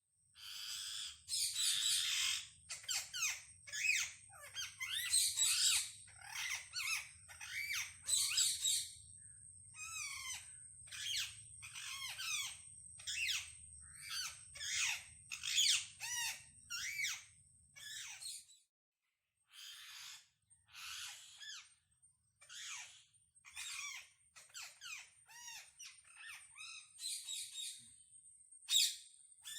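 Parrots calling: a rapid, overlapping series of short squawks and chirps, many sliding up or down in pitch, with a brief break about two-thirds of the way through.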